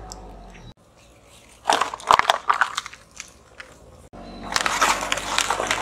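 A car tyre rolling over and crushing small brittle objects on asphalt: two bursts of crunching and crackling, one about two seconds in and another from about four and a half seconds.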